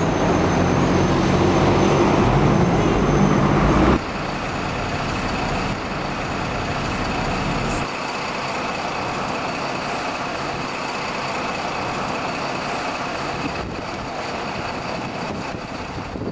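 City street traffic, with a bus engine running close by for the first few seconds. The sound changes abruptly about four seconds in and again near eight seconds, settling into quieter general road traffic noise.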